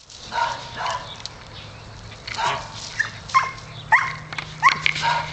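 Dogs playing rough, giving short yips and whines, with a quick run of brief rising-pitched yelps in the second half.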